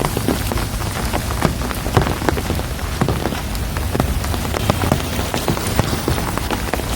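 Steady rain, with many separate drops striking close by over a low rumble.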